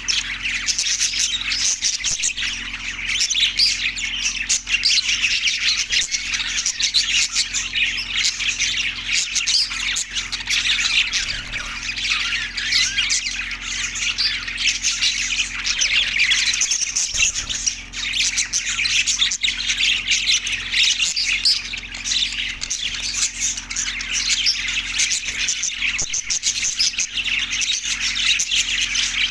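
A flock of budgerigars chirping and chattering continuously, many birds calling over one another.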